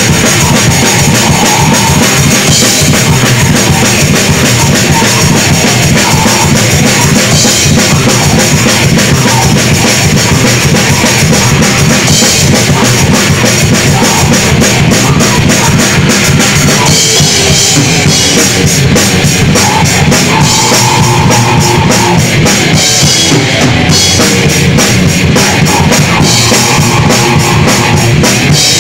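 Heavy metal band playing live: a drum kit with bass drum and cymbals, with electric guitar and bass guitar, steady and very loud throughout.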